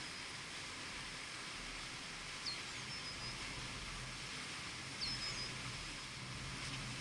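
A bird calling twice, about two and a half seconds apart, each a short high chirp that drops quickly in pitch. Under it runs a steady outdoor hiss.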